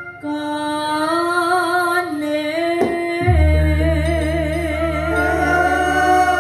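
A woman sings through a microphone with a live band, holding long notes with a wide vibrato. A brief click comes about halfway, and then a low steady bass note comes in under her voice.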